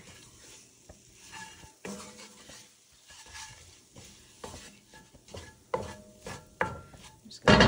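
A spoon stirring flour into butter-softened onion, carrot and garlic in an enamelled Dutch oven, scraping and now and then knocking against the pot over a faint sizzle as the flour cooks into a roux. A louder clatter comes at the very end.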